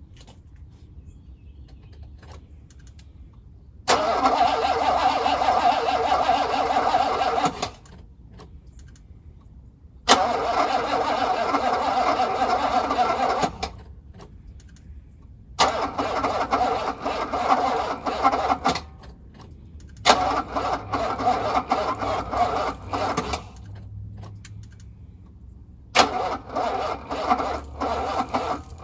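1985 Mercedes-Benz W126 SEC V8 being cranked by its starter in five separate attempts of about three to four seconds each, turning over without catching. It is a crank-but-no-start that the owner suspects comes from the fuel pump or its relay.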